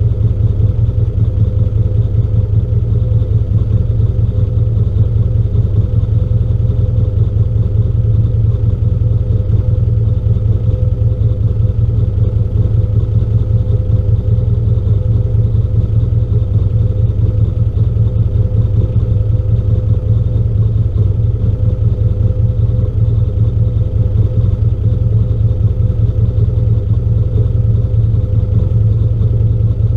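Off-road vehicle engine idling steadily: a constant low drone that never revs.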